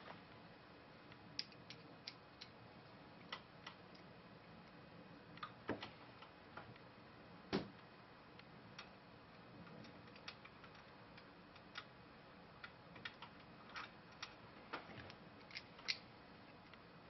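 Faint, irregular clicks and light taps of a hand Torx screwdriver and small screws against the muffler of a Stihl HS80 hedge trimmer, over a low hiss; one sharper tap about seven and a half seconds in.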